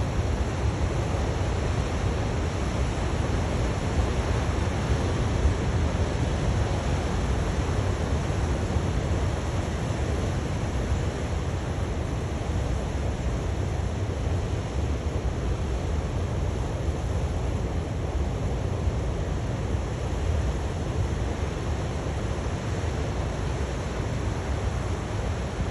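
Steady outdoor rushing noise with a low, buffeting rumble: wind on the microphone over coastal surf.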